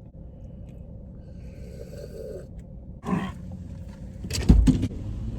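A steady low rumble, with a brief hiss a little over a second in and two sharp, loud thumps near the end.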